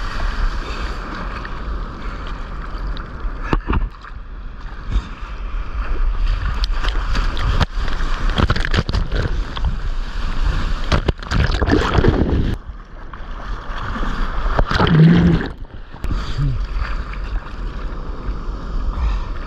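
Seawater splashing and sloshing against a head-mounted GoPro while bodysurfing, with small waves breaking around it and wind buffeting the microphone. Louder rushes of water come about twelve and fifteen seconds in.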